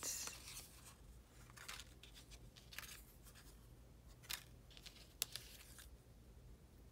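Faint rustling of small paper cutouts and card tags being handled and shuffled by hand, with a few brief sharp paper clicks.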